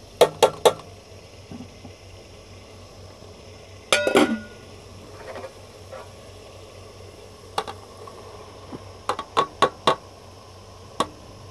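Metal spoon clinking and knocking against an aluminium cooking pot, three quick knocks at the start and a louder ringing clink about four seconds in, over the faint steady hiss of onions, tomatoes and green chillies cooking in oil. Near the end a quick run of light knocks comes as chopped okra is tipped into the pot from a plate.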